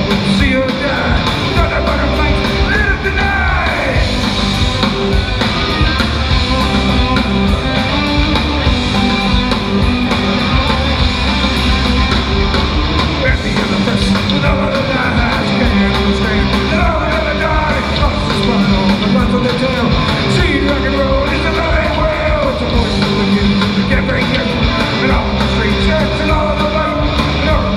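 Oi! punk band playing a song live: distorted electric guitars, bass and drums with shouted vocals, heard from within the crowd in a large hall.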